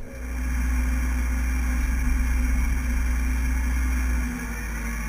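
Komatsu HB215 hybrid excavator running with a steady low engine drone. The level drops slightly about four seconds in.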